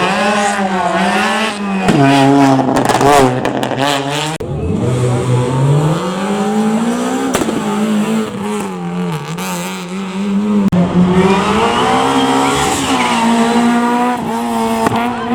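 Rally car engine under hard acceleration on a special stage, its pitch climbing and dropping sharply at two gear changes in the first few seconds, then revving up again, easing off and building once more near the end.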